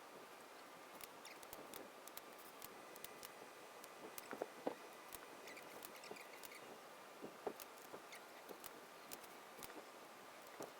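Faint, irregular light clicks and taps of hand tools working on aluminium aircraft parts, with a few sharper clicks in the middle.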